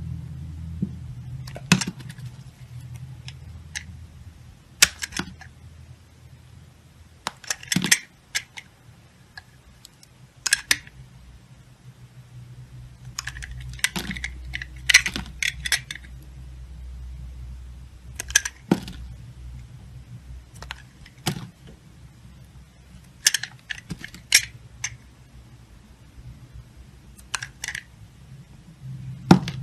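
Snap-off utility knife blade slicing and shaving a bar of translucent soap: about ten short clusters of crisp crackling cuts, a few seconds apart, over a low steady hum.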